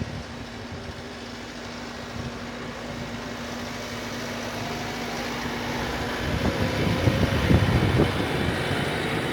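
TYM 574 tractor's diesel engine running steadily and growing louder as it comes closer. From about six seconds in it is joined by louder low knocks and scraping as the plow works the snow.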